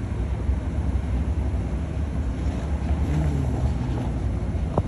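Steady low rumble of an idling car engine, with a faint voice in the distance about three seconds in.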